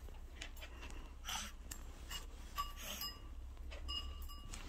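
Small flat-faced dog panting and snuffling in short breaths, with a few faint, brief high squeaks.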